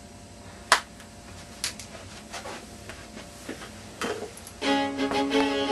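Background music of sustained bowed string notes, quiet at first and swelling much louder about four and a half seconds in, with a sharp click about a second in.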